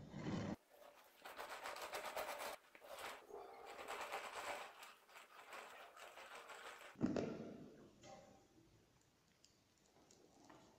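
Metal cake spatula scraping over whipped cream on a turning cake stand: rapid runs of small clicks and scrapes in short edited pieces that cut off abruptly, with a sharp knock about seven seconds in and quieter handling near the end.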